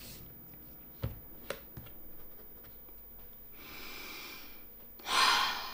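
A woman stifling a fit of giggles: a couple of light knocks about a second in, a soft breath out through the nose a little past halfway, then a louder burst of held-in laughter through the nose near the end.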